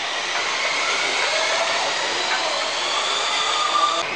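Radio-controlled touring cars running on a smooth concrete court: small motors whining, pitch rising and falling with the throttle, over a steady hiss of tyres.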